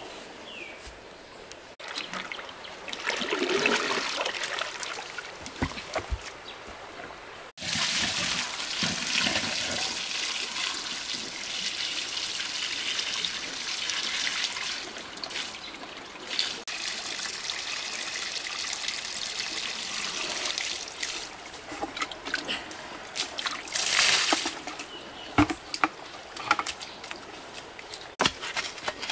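Water splashing and trickling, with abrupt changes about two and seven seconds in and several sharp splashes or knocks near the end.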